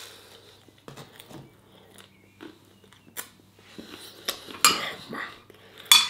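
A man chewing food, with a fork clicking and scraping on a plate in short scattered bursts; the sharpest, loudest clink comes near the end.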